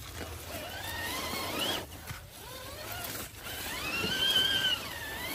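Electric motor of a 1/10-scale RC rock crawler whining under throttle as it is given power to climb. The whine rises in pitch over the first two seconds and cuts off, then rises again, holds and dips near the end.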